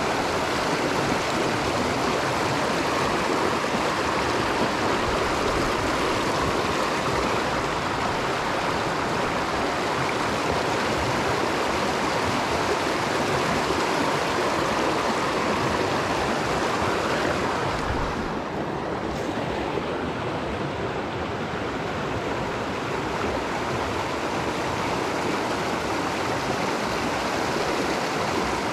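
Mountain stream water rushing steadily. About two thirds of the way through, the sound briefly turns duller and a little quieter.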